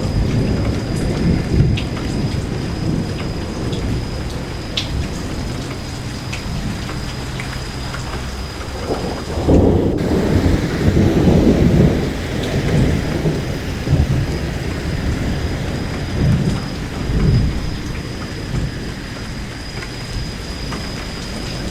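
Steady rain falling, with thunder rumbling low underneath. A louder roll of thunder swells about nine seconds in and rumbles on for several seconds, with a shorter swell later.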